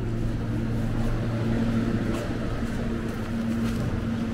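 Steady low mechanical hum with a drone and a higher tone that cuts in and out, and a few faint clicks over it.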